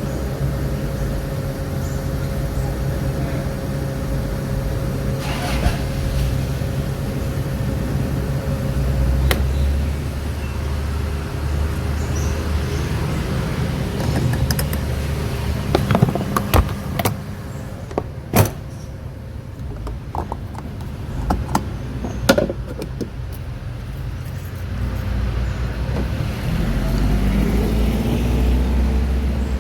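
A vehicle's engine running at a steady pitch with low rumbling road noise. It drops back in the middle, with a few sharp clicks and knocks, then picks up again near the end.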